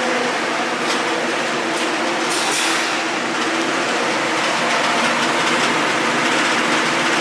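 Arc welding: a steady, loud crackling hiss of the welding arc over the low hum of the welding machine, with a few brief sharper crackles in the first few seconds.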